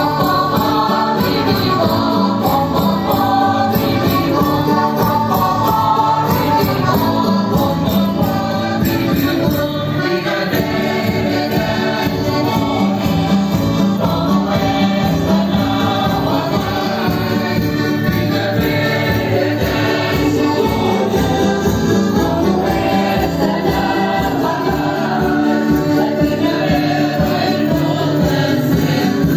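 Madeiran folk music: a group singing together over a steady beat of hand percussion such as tambourine.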